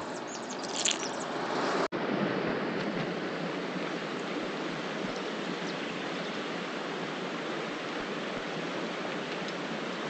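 Steady, even outdoor hiss with no distinct events, broken by a short dropout about two seconds in.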